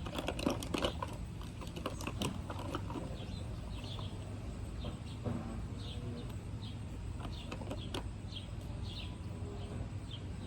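Plastic lip gloss tubes and caps clicking and tapping as they are handled and set down, most busily in the first few seconds. Faint short high chirps recur every half second or so after that, over a low steady hum.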